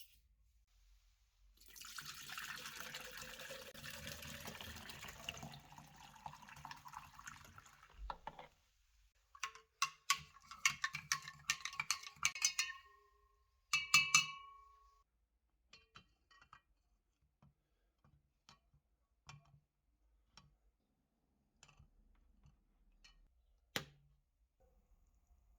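Liquid pouring for about seven seconds, then a cluster of sharp, ringing clinks, followed by a few scattered light ticks.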